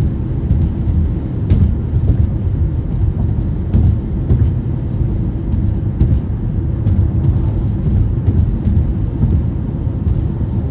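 Steady low rumble of a car being driven, heard from inside the cabin, with a few faint clicks scattered through it.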